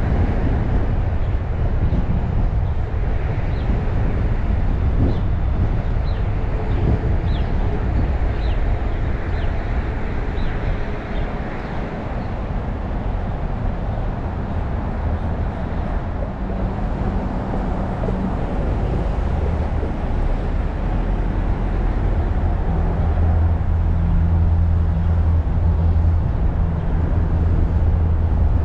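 Car driving along a city street: steady road and engine rumble with surrounding traffic, and a low steady hum that comes in near the end.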